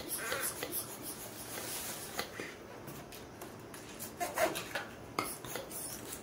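Long inflated latex twisting balloon rubbed and bent between the hands, giving rubbery rubbing and squeaks, with a cluster of squeaks about four seconds in.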